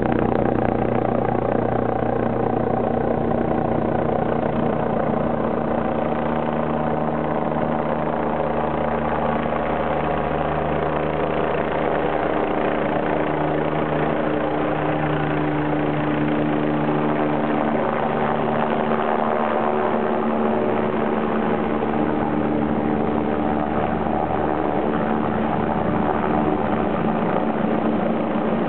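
Light helicopter flying with a concrete bucket slung below on a long line: a steady rotor-and-engine drone made of several held tones, whose pitches shift partway through as the helicopter moves.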